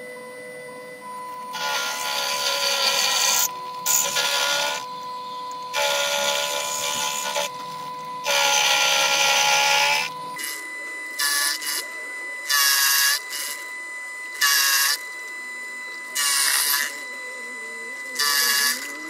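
Proxxon PF230 mini milling head's motor whining steadily while its end mill cuts into a metal tool-holder blank in repeated loud, harsh bursts as the cutter bites. The bursts last a second or two at first and then come shorter, about half a second each. The whine's pitch changes about ten seconds in.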